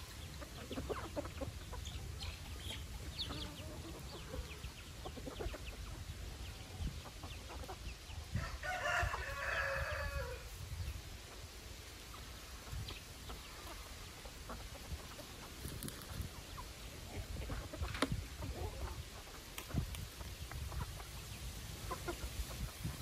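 Chickens clucking while they feed, with a rooster crowing once, about two seconds long, roughly eight seconds in.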